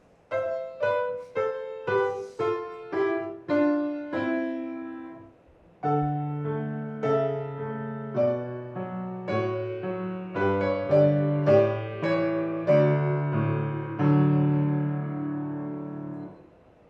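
Piano playing: a run of single notes falling in pitch, a short pause, then chords over low bass notes, ending on a held chord that fades out.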